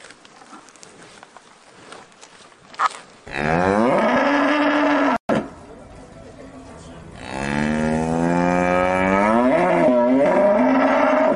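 Cows mooing: two long, loud moos. The first falls in pitch and breaks off suddenly. The second, longer one, from a black-and-white Holstein dairy cow, wavers near its end.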